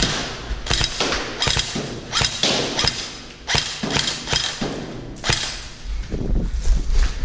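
Airsoft rifle firing a string of sharp single shots, roughly two a second, with a short pause about three seconds in.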